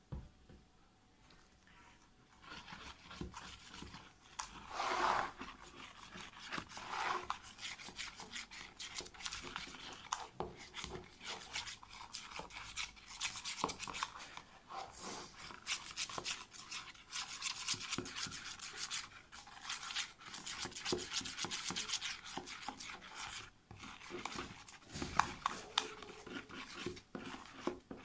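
A spoon stirring and scraping a thick, foamy slime mix of glue, shaving foam and body cream around a plastic tub. It is rapid and continuous, starting about two seconds in, with a brief pause near the end.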